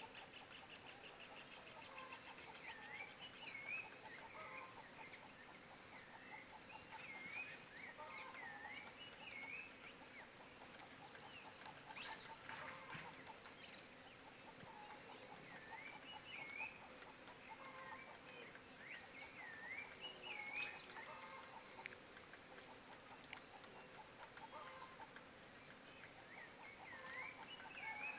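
Rufous-bellied thrush (sabiá-laranjeira) singing short, curling whistled phrases again and again, over a steady high insect drone. Two sharp snaps stand out, one near the middle and one about two-thirds of the way through.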